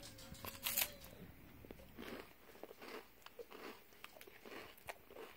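Faint crunching and chewing of a chocolate-coated peanut butter wafer bar, soft irregular mouth noises, with one brief louder noise about a second in.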